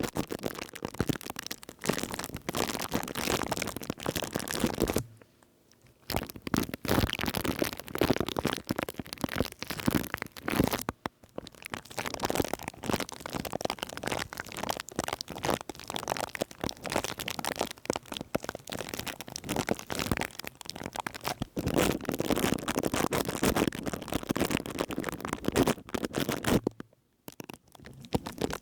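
Close-miked ASMR trigger sounds on a microphone: dense crackling, crinkling and scratching. The sound breaks off briefly twice, about five seconds in and near the end.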